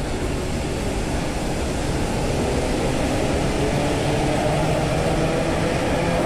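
Electric commuter train of the ER series running past along the platform: a steady rumble of wheels on rail with a low motor hum, growing a little louder after a couple of seconds.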